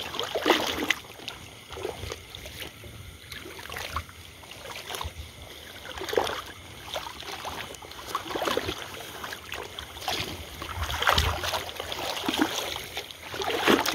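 A person wading through floodwater, the water sloshing and swishing with each stride, about one step every second or two.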